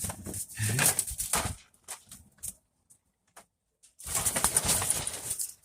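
Game fowl beating its wings in two flurries, with a few scattered clicks between them.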